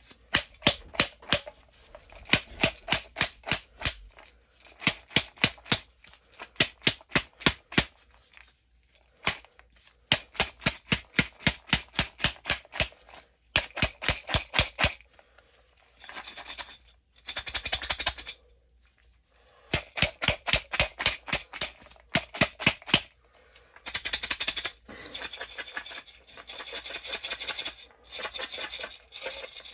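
Mycelium-colonized corn grain spawn rattling inside a glass mason jar as the jar is shaken hard by hand to break up the colonized grain (a shake and break). Runs of sharp rattling strikes, several a second, with short pauses between, turn into a denser, continuous rattle in the second half.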